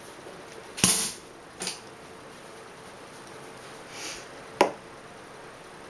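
Lips smacking as they press together to spread freshly applied lipstick: a few short, sharp smacks, the loudest about a second in and another about four and a half seconds in, with a softer one and a brief breathy hiss between them.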